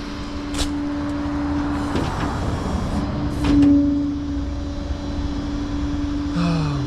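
Tow truck engine running with its PTO engaged, a steady hum throughout. A few clanks of metal on the truck sound over it, the loudest about three and a half seconds in.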